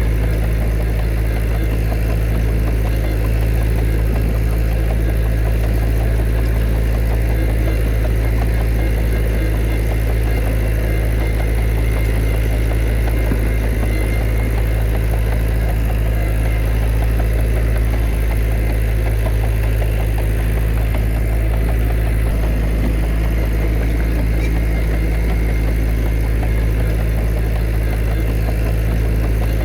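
Heavy diesel engine of earthmoving machinery running steadily, with a deep low rumble that holds an even pitch throughout.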